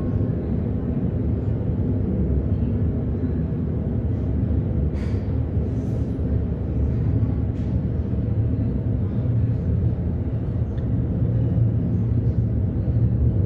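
Military jet aircraft rumbling overhead: a steady low rumble that grows slightly louder near the end, with a few brief faint crackles about five to eight seconds in.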